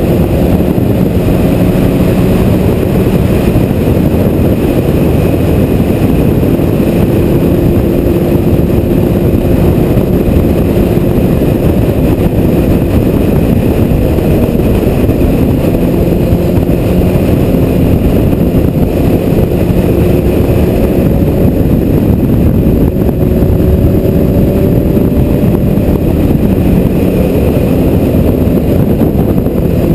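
Loud, steady wind roar on a motorcycle-mounted camera at cruising speed, with the Honda CBR1000RR sportbike's inline-four engine running underneath, its pitch drifting slightly up and down.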